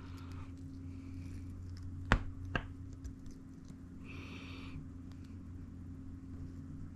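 Small metal ratchet parts being handled: two sharp clicks about half a second apart, over a steady low hum.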